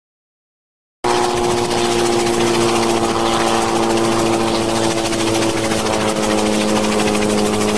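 Silence, then about a second in a light helicopter's engine and rotor start up abruptly in the soundtrack, running loud and steady with an even whine as it hovers low.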